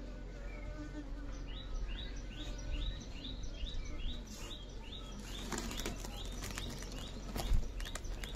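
Asian honey bees (Apis cerana indica) buzzing around an open hive box, with a bird repeating a short rising chirp about twice a second. In the second half, wooden hive parts knock and a sack-cloth cover rustles as it is laid over the top bars, the loudest knock near the end.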